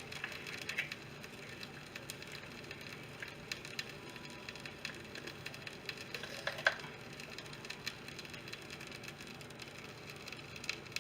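Vegetable oil in a pre-heated frying pan crackling faintly, scattered small ticks and pops, with one sharper click about six and a half seconds in.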